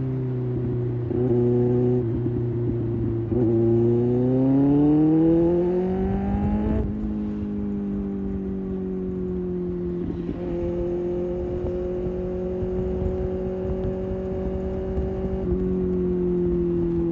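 Kawasaki ZX-6R's inline-four engine under way: it holds a steady note, then accelerates with its pitch rising for about three seconds. Its note breaks sharply about seven seconds in, as at a gear change, and then it cruises steadily at a higher note with small throttle changes.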